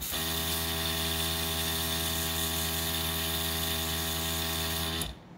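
Nail airbrush and its small compressor running: a steady electric hum under a hiss of air from the airbrush nozzle aimed at a fingernail. It stops suddenly about five seconds in.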